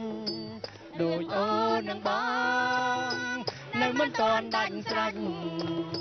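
A woman singing a Cambodian folk song into a microphone, holding one long note about two seconds in, over quiet instrumental backing.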